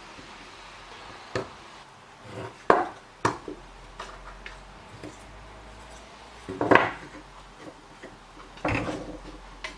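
Wooden box-joint parts of a small box being knocked and forced together: several sharp wooden knocks, the loudest about two-thirds of the way through, and a longer rubbing scrape near the end as the tight joint is pushed into place.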